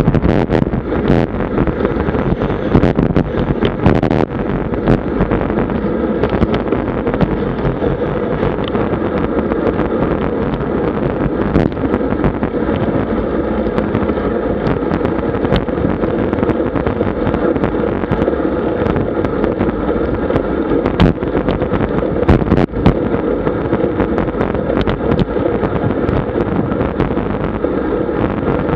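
Wind rushing over an action camera's microphone on a road bike moving at about 45 km/h, with steady road noise and scattered sharp knocks from bumps, a few of them near the start and a couple more about three quarters of the way through.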